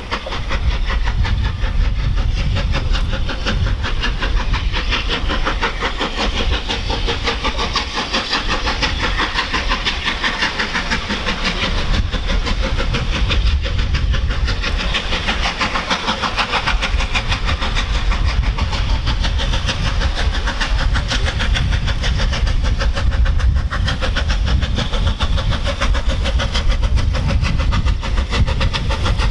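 Bulleid unrebuilt Battle of Britain Pacific No. 34081, a three-cylinder steam locomotive, working hard at the head of a freight train, its chimney exhaust a rapid, unbroken stream of beats over a low rumble as it approaches.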